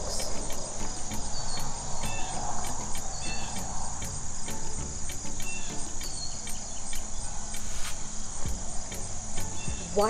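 Insects chirring steadily at a high pitch, with faint short chirps over them.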